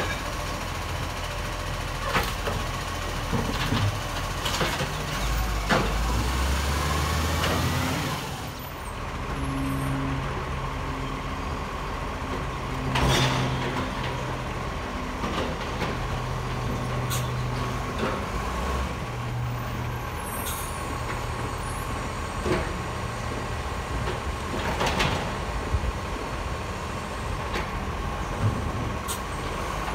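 Side-loader garbage truck running with its automated arm lifting and tipping recycling bins: a steady engine drone that steps up and down in pitch under load, a constant thin whine, and several sharp clunks and bangs as the arm and bins work.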